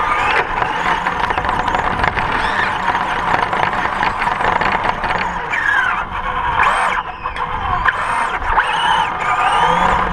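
Remote-control car's motor whining as it drives, its pitch rising and falling, over a steady rushing noise.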